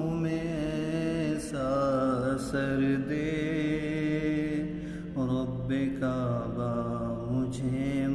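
Wordless male vocal humming in nasheed style: a held low note under a slowly moving melody, continuing between the sung lines of the dua.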